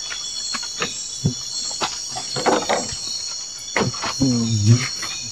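Steady high-pitched chirring of a cricket and insect chorus, with scattered clicks and knocks and a short low vocal sound about four seconds in.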